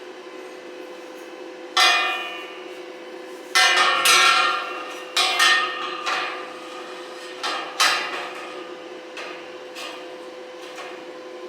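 A hammer striking metal about eight times at an irregular pace, each blow ringing briefly before dying away, over a steady hum.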